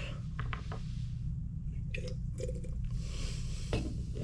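Someone drinking from an energy-drink can: faint mouth clicks, then two soft swallows about halfway through.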